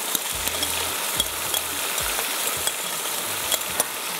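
Marinated chicken sizzling in a hot open pan with browned onions, stirred with a spoon that clinks sharply against the pan a few times.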